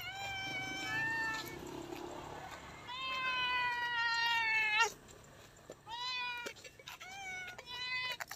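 Hungry stray tabby cat meowing repeatedly for food: two long, drawn-out meows, the second the loudest, then three shorter meows near the end.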